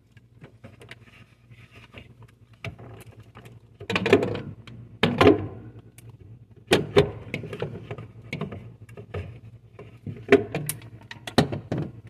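Hard plastic knocking, clicking and scraping as a refrigerator water-filter cartridge is pushed and twisted against the GE SmartWater filter housing: a mismatched replacement cartridge that does not seat. Sharp clunks come at uneven intervals, loudest in the middle and near the end, over a low steady hum.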